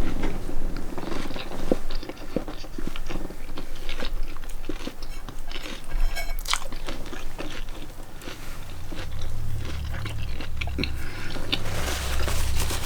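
Close-up chewing and biting of a lettuce wrap: crisp lettuce crunching and wet mouth sounds in short, irregular clicks. A low rumble joins in about two-thirds of the way through.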